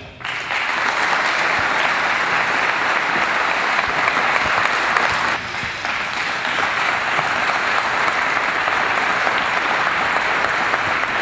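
An audience applauding, a dense, steady clapping that starts about a second in and keeps going.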